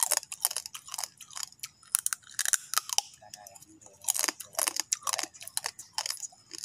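A person chewing a raw crab's claw with the shell on: irregular crunches, a few a second.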